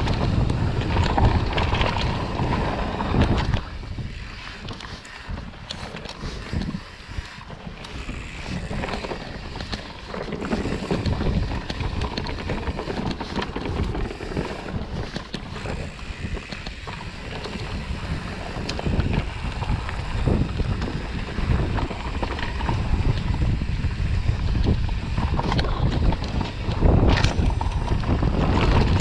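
Wind buffeting the microphone of a handlebar-mounted camera on a moving mountain bike, over the rumble of tyres rolling on a dirt forest trail, with frequent short rattles and knocks from the bike over bumps.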